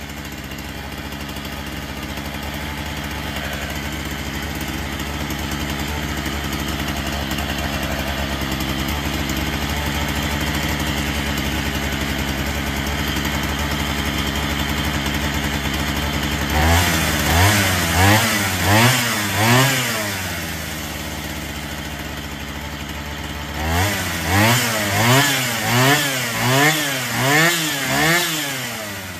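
Falcon 73cc two-stroke chainsaw idling steadily, then revved in two bursts of quick throttle blips: about five a little past halfway, then idle, then about seven near the end. It runs cleanly now that its dust-clogged carburettor has been washed out.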